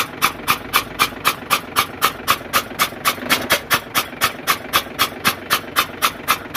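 FAW truck six-cylinder diesel engine running with one injector removed, the open injector bore chuffing sharply about four times a second as that cylinder's compression blows out through it, spitting mist. Running it this way clears water that had got into the cylinder.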